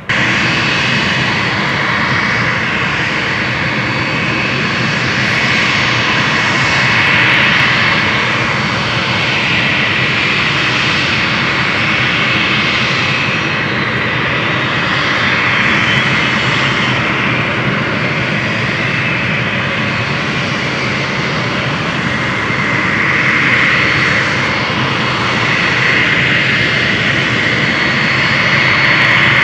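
Lockheed L-1011 TriStar's Rolls-Royce RB211 turbofans running on the ground, loud and steady: a high whine over a broad rush, with one whine tone falling in pitch about halfway through.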